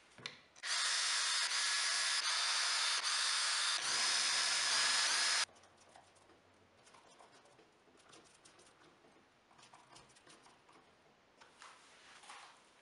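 Cordless drill running at speed as its bit bores into a wooden strip for about five seconds, then cutting off suddenly. Faint light clicks and rattles follow as screws are handled and set in the holes.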